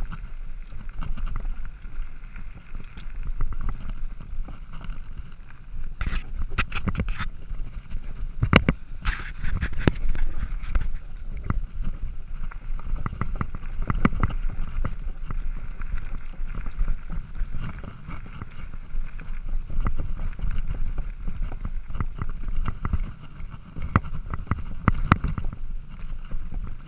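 Mountain bike riding fast over a rough grassy trail: wind rumbling on the handlebar camera's microphone, with the bike rattling and clattering over bumps in sharp clusters of knocks, the heaviest about six to ten seconds in.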